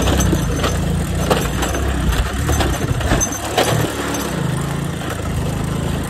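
Small motorbike engine running under load on a steep climb, with scattered rattling knocks as the bike jolts over the broken road.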